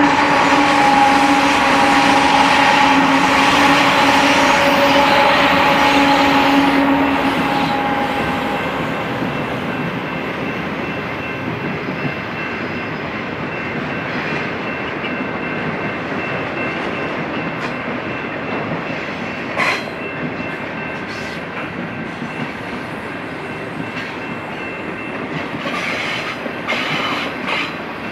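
BNSF diesel locomotives passing close by with the horn sounding, the horn and engine noise fading out about eight seconds in. Then double-stack container cars roll past with steady wheel-on-rail noise, a few sharp clicks and a faint wheel squeal.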